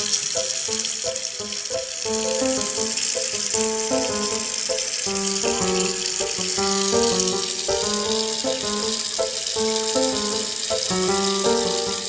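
Water running steadily from a kitchen tap, a hiss under background music with a light melody of short stepping notes.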